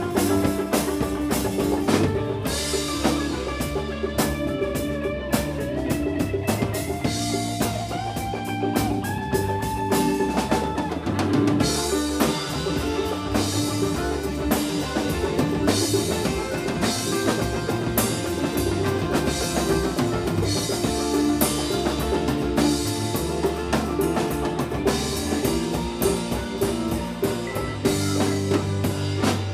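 Live band playing an instrumental funk-rock passage: a drum kit with snare and bass drum keeps a steady beat under a bass line, while a lead instrument holds notes that climb step by step over the first ten seconds.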